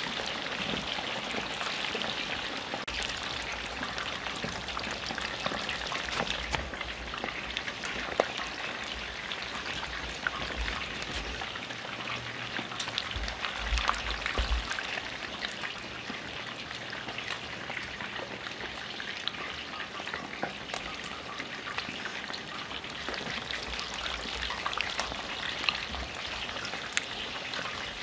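Chicken wings deep-frying in hot oil in cast-iron Dutch ovens: a steady sizzle with scattered small pops.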